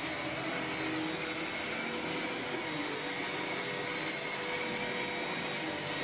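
Sirena water-filtration vacuum cleaner running with its power nozzle pushed over a rug: a steady whir with a constant whine on top.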